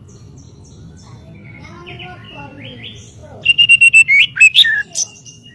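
White-rumped shama (murai batu) singing. Soft warbling comes first; then, a little past halfway, a loud rapid run of sharp chirps and whistles ends in a held high whistle.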